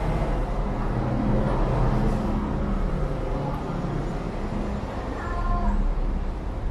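City road traffic: a steady low rumble of vehicle engines passing on the street, with no single vehicle standing out.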